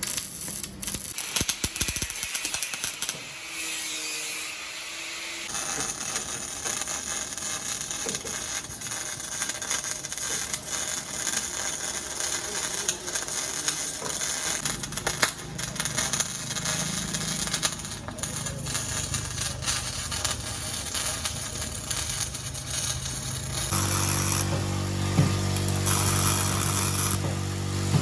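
MIG welding arc crackling and spitting steadily as the wire feeds into the weld. Near the end a steady low engine hum sets in under it.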